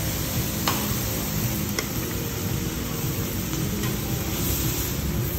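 Steady hiss of restaurant background noise, with two short clinks about a second apart, fitting metal forks on ceramic plates.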